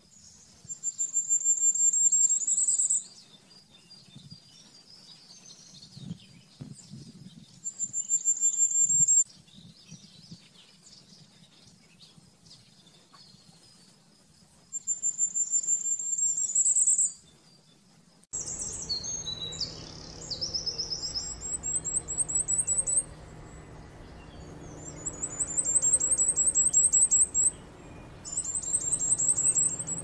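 Common firecrest singing: seven songs of thin, very high notes, each about two seconds long, speeding up and ending in a short rising flourish. A low background hum comes in about halfway through.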